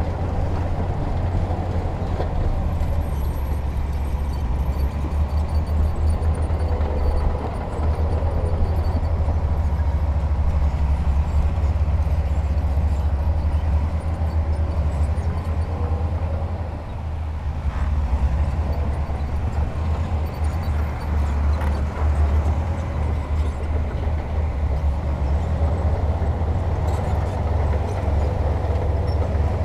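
Heavy diesel earthmoving machinery running steadily, a deep engine drone with a few brief knocks.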